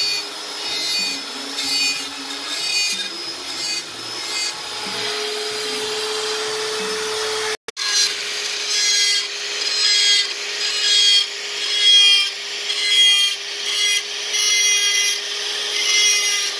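Electric rotary carving tool running with a steady whine while its small bit cuts into wood in repeated short scraping strokes, roughly one a second. The sound cuts out for an instant about halfway through.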